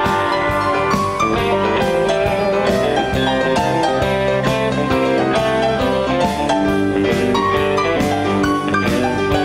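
Live rock band playing an instrumental passage: electric guitar, keyboards, bass guitar and drum kit over a steady beat, with no singing.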